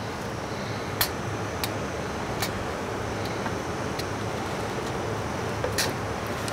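Steady hum of kitchen ventilation with a handful of short sharp clicks, the loudest about a second in and near the end, as the rim of a stainless steel pan knocks against a plastic measuring pitcher while batter is poured from it.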